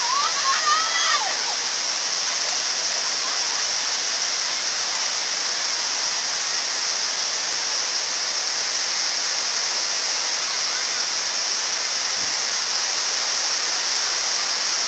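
Flash-flood water rushing together with heavy rain, a steady hiss that does not let up. Brief high calls sound in the first second.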